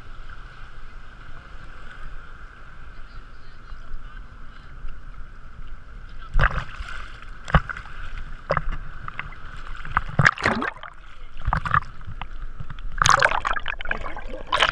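Sea water sloshing and slapping against a waterproof camera at the surface, muffled. Sharp splashes come in from about six seconds in, and a louder rush of churning water near the end as the camera dips under.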